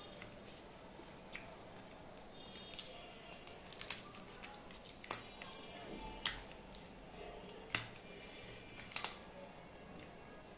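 Fingers mixing and picking up rice on a ceramic plate while eating by hand, with about five sharp clicks of fingers or nails against the plate, roughly one every second from about four seconds in.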